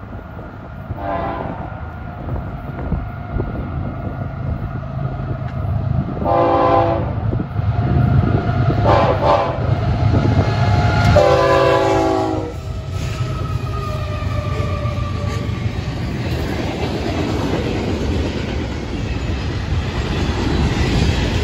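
Horn of an approaching Florida East Coast Railway freight train, led by GE ES44C4 diesel locomotives: four blasts, the last the longest and loudest, over the steady low rumble of the locomotives. In the second half the freight cars roll past with wheels clacking over the rail joints.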